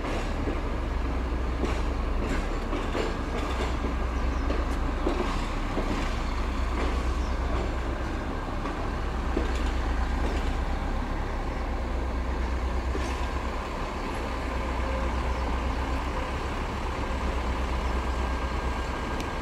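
CMB-43 overhead-line maintenance car rolling slowly along the track, its diesel engine running with a steady low hum and its wheels clicking now and then over the rails.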